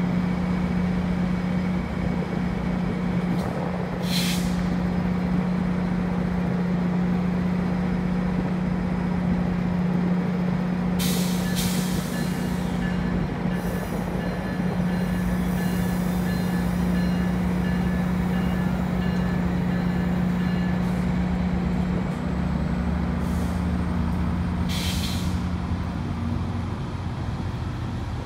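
GO Transit bilevel commuter train standing at the platform and then starting to pull away: a steady low hum from the train throughout, short hisses of air about 4, 11 and 25 seconds in, and a deeper rumble joining about 22 seconds in as it gets moving. Faint intermittent beeping runs between about 12 and 21 seconds in.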